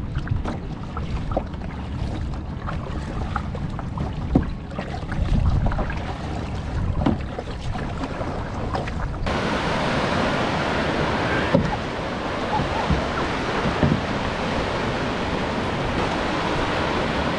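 Kayak paddle strokes splashing, with wind buffeting the microphone and a low rumble. About nine seconds in it changes abruptly to a steady wash of waves breaking in shallow surf.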